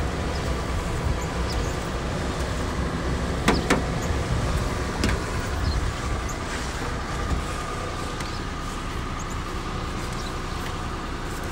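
Snow brush sweeping snow off a car's windows and side mirror, with a few sharp knocks of the brush, over the steady low rumble of the car idling as it warms up in the cold.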